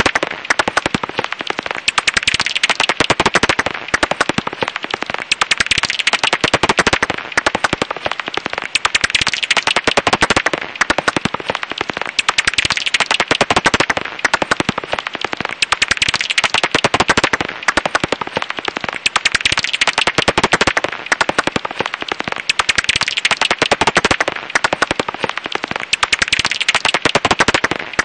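Japanese house bat (Japanese pipistrelle) calls: dense, rapid trains of dry clicks coming in bursts of a second or two, separated by brief lulls.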